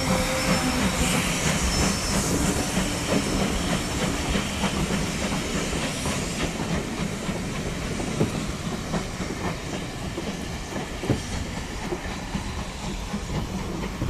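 Passenger coaches of a steam-hauled train rolling away along the track, their wheels clicking irregularly over the rail joints over a steady rumble, with a hiss of steam. The sound eases off slightly as the train recedes.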